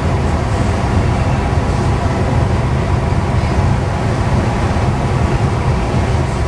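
Steady engine and road drone heard inside a semi truck's cab cruising at highway speed.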